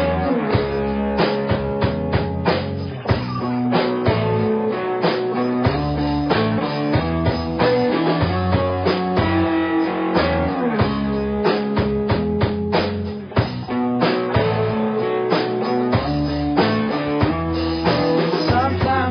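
Instrumental background music: guitar over a drum kit keeping a steady beat.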